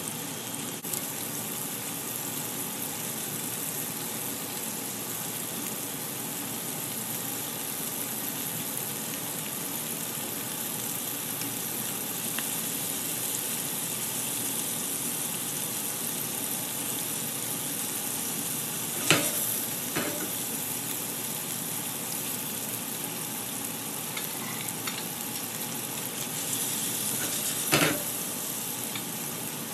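Shrimp frying in olive oil and butter in a nonstick pan, a steady sizzle. A few sharp clicks of utensils against the pan stand out about two-thirds through and again near the end.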